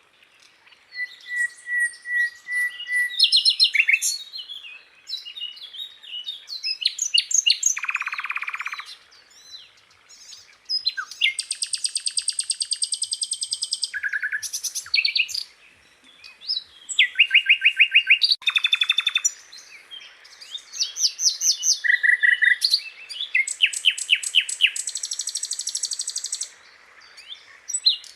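Sikatan londo, a small flycatcher, singing a varied song of chirps, fast trills and buzzy rattling phrases, in bursts of a second or two with short pauses between them.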